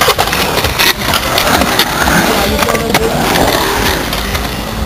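Skateboard wheels rolling on a concrete bowl, a steady rumble, with a few sharp clacks of boards striking the concrete.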